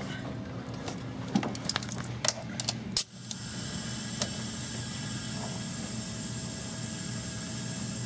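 Sharp clicks and knocks of hands at the leak-down tester's fittings, then about three seconds in a steady hiss of shop air starts and holds as the tester pressurizes the cylinder. The cylinder is leaking about 40 to 45%, which the technician calls still really bad.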